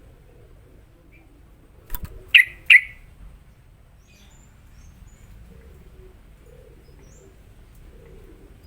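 Yellow-vented bulbul (trucukan) giving two short, loud, sharp calls in quick succession about two seconds in, just after a click; otherwise only faint distant chirps over low background noise.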